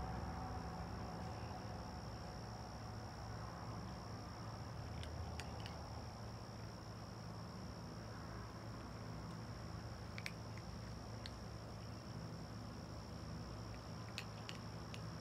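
Crickets trilling in a steady, high, unbroken chorus over a low background rumble, with a few faint clicks.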